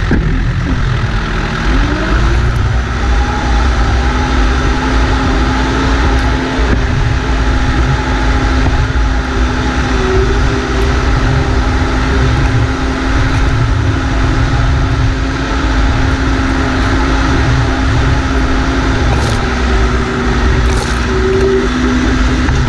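B95 backhoe loader's diesel engine running under load as the machine drives across grass, its speed rising about two seconds in and then holding steady.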